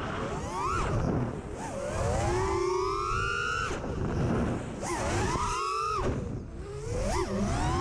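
FPV miniquad's four brushless motors (T-Motor F40 v3, 2400 kV, on a 5S battery) whining as the throttle is punched and chopped, the pitch climbing and then dropping off sharply several times. A rumble of wind and prop wash sits on the onboard camera's microphone.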